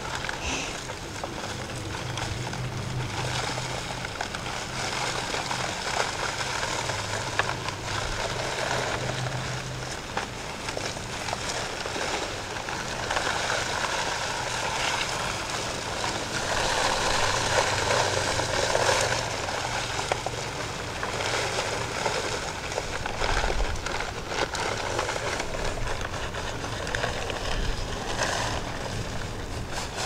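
Dry bagged concrete mix pouring out of a paper sack into a wooden form over rocks: a steady rushing hiss with fine crackle, loudest around the middle. A steady low hum runs underneath.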